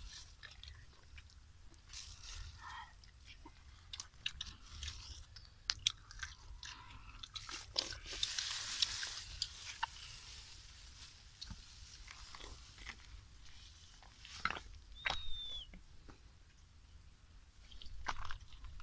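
Scattered clicks and crunches of snail shells knocking together on a plastic tarp as they are handled, with a stretch of plastic bag rustling about eight seconds in and one short, falling high chirp a few seconds before the end.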